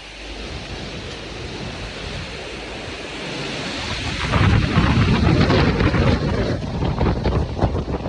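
Strong wind gusting and buffeting the microphone, building up and growing much louder about four seconds in, with a low rumble and crackling.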